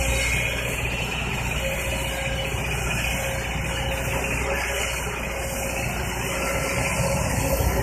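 Kobelco tracked excavator's diesel engine running steadily.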